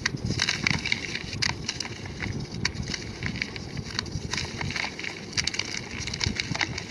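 Blocks of gym chalk crushed and crumbled, giving a dense run of small crunchy cracks and crackles.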